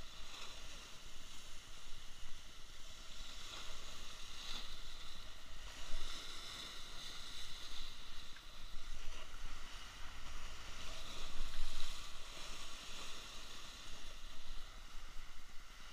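Sea waves surging and breaking against shoreline rocks, washing in and out in uneven swells, loudest about six seconds in and again around eleven to twelve seconds, with a low wind rumble on the microphone.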